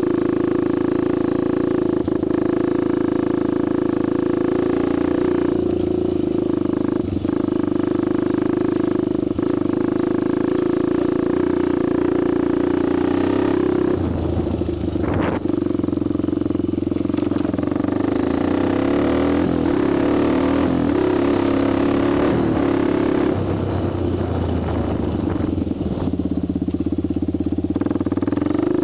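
Honda TRX250X quad's single-cylinder four-stroke engine and exhaust running under way, its note mostly steady with some rises and falls in engine speed. There is a short sharp noise about halfway through.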